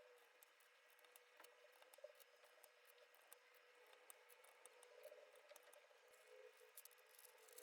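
Faint, scattered small plastic clicks of Razer Phantom keycaps being pressed onto a mechanical keyboard's switch stems, over a faint steady hum.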